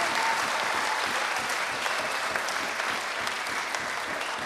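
Audience applauding, with many hands clapping at once and the clapping slowly easing off toward the end.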